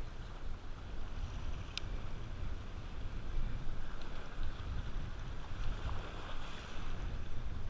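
Wind buffeting the microphone with an uneven rumble, over the steady wash of small surf breaking on shore rocks. A single sharp click sounds about two seconds in.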